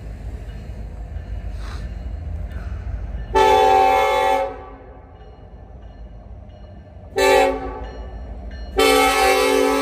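Norfolk Southern diesel locomotive's multi-tone air horn sounding the grade-crossing signal: a long blast about three seconds in, a short one about seven seconds in, and another long one starting near the end. A low, steady rumble sits underneath.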